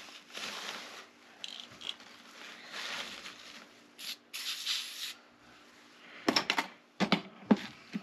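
An aerosol spray can hisses in two short bursts about four seconds in as cleaner is sprayed on gunky safe-lock parts. A few sharp knocks and clicks follow near the end.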